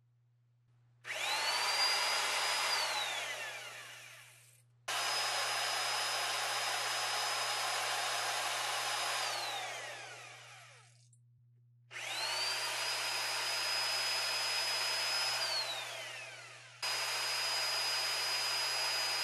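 Corded electric drill spinning the input of an oil-filled, 3D-printed fluid coupler in four runs. Each run climbs to a steady high whine and winds down with a falling pitch when the trigger is let go. At this drill's speed little torque makes it through the coupler to the output side.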